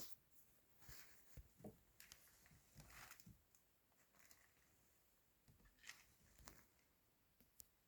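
Near silence, broken by a few faint, scattered small clicks and soft rustles.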